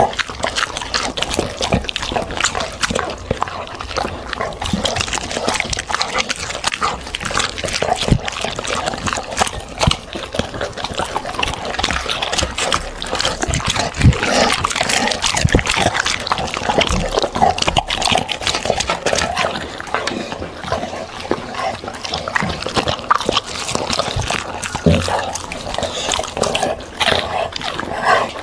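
A dog eating fruit and vegetables: continuous wet chewing and crunching, with dense rapid crackles and smacks.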